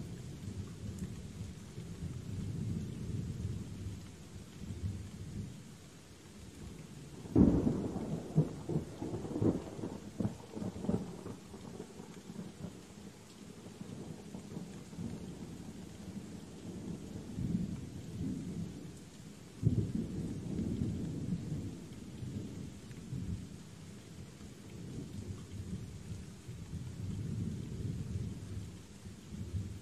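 Steady rain with rolling thunder: low rumbling throughout, broken by a sharp thunderclap about seven seconds in that crackles and rumbles on for a few seconds, and a second sudden clap about two-thirds of the way through.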